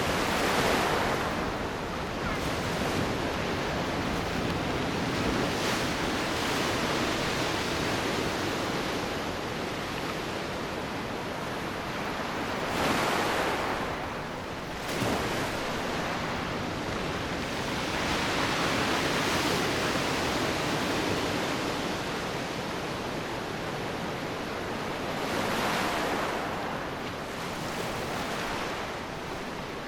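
Ocean waves breaking on the shore: a steady wash of surf that swells and eases in surges every few seconds, the strongest near the start and about halfway through.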